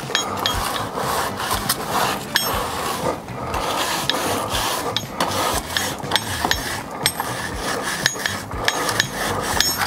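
A flat metal scraper blade scraped back and forth across a stainless steel grill cooking grate, clearing off built-up grease and gunk: a continuous rasp with many short sharp clicks.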